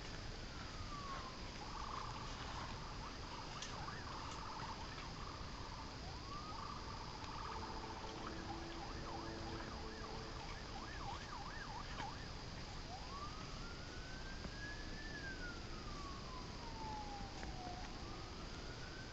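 Faint, distant emergency-vehicle siren. It wails in slow rising and falling sweeps, with a stretch of quick, repeated yelping sweeps in the middle.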